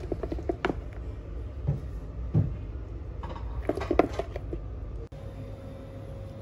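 Gram-flour batter being mixed in a bowl: irregular clicks and knocks of the utensil against the bowl. These stop suddenly about five seconds in, leaving a faint steady hum.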